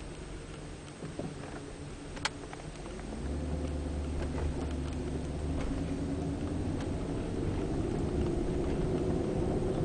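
BMW 740i on the move: steady road and drivetrain noise that grows louder about three seconds in, with scattered faint ticks and creaks and one sharp click a little after two seconds in. The creaking, which comes especially when slowing down, has been getting worse.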